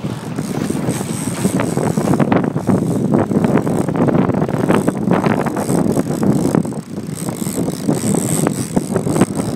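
Boat moving through choppy sea: a steady rush of motor and water along the hull, with wind on the microphone and scattered short clicks and knocks.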